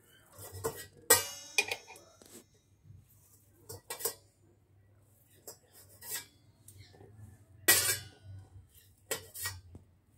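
Knife blade clinking and scraping on a steel plate while soaked soya chunks are chopped into small pieces: a handful of sharp, spaced clinks, the loudest about a second in and near eight seconds.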